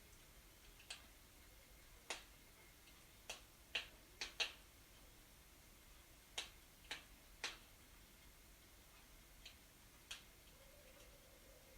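Wood fire crackling in a fireplace: about a dozen sharp snaps and pops at irregular intervals over a faint steady background, most of them in the first two-thirds.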